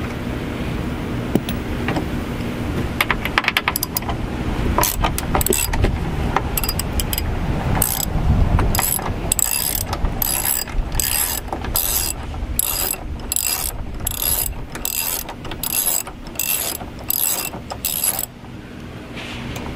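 Socket ratchet with a 10 mm socket clicking as it is worked back and forth, loosening the screws that hold a side mirror on a door. Scattered clicks at first, then steady ratcheting strokes about twice a second that stop sharply near the end.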